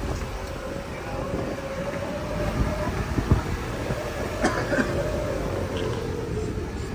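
Vehicle driving in low gear: a steady drivetrain whine over a dense low road rumble, with a couple of short knocks around the middle.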